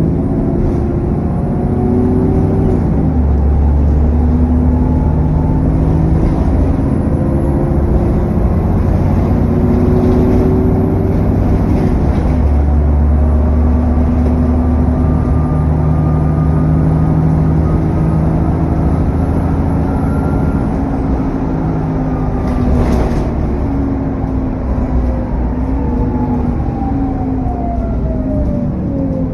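A diesel bus driving under way, heard on board. Its engine note climbs through each gear and drops back at the automatic gear changes, about three seconds in, about twelve seconds in and near the end, over cooling-fan noise and a high turbo whine.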